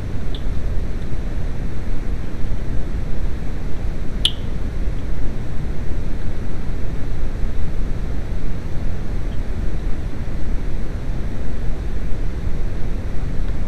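Steady low rumbling noise with uneven loudness, with one sharp click about four seconds in and two faint ticks.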